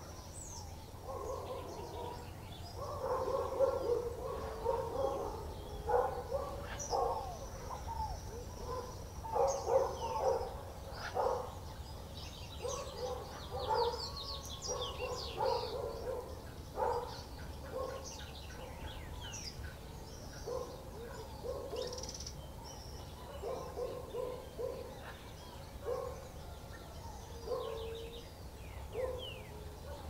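Birds calling at a seed feeder: short runs of low, quick notes, with high, thin chirps and falling whistles above them, busiest in the first half.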